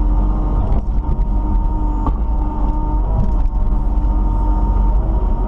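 Kubota KX91 mini excavator's diesel engine running steadily under work, with a couple of short knocks about one and two seconds in.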